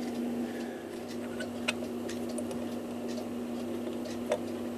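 A few light, sharp clicks of small brass clock-movement parts being handled and fitted together, over a steady low hum.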